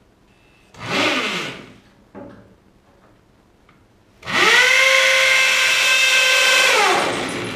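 Hammer drill with a 1/4-inch carbide masonry bit, in hammer mode on its higher speed, drilling into a concrete floor. A short burst about a second in falls in pitch as the motor winds down. A steady run of about three seconds starts around four seconds in and spins down near the end.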